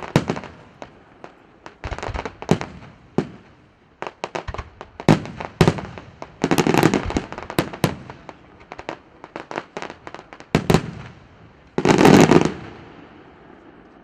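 Fireworks display: a rapid, irregular run of sharp bangs from bursting aerial shells, with two dense volleys of crackling reports, the loudest about twelve seconds in, then fading.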